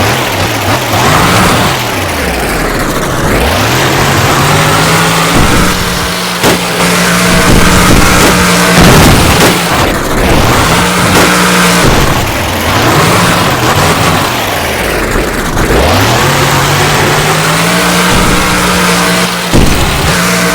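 Monster truck engine revving hard and dropping back over and over during its run, its pitch climbing and falling several times, very loud.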